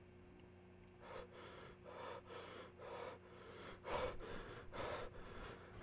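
A man breathing in quick, heavy gasps, about two a second, starting about a second in and growing louder from about four seconds in.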